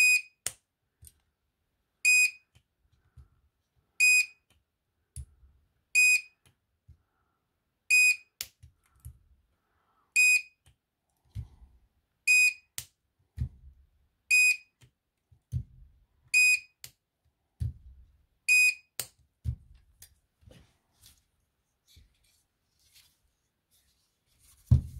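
Handheld battery spot welder beeping about every two seconds, ten times, as its pens weld a nickel strip onto lithium-ion cells, several beeps followed by a sharp snap of the weld. Near the end a single loud knock.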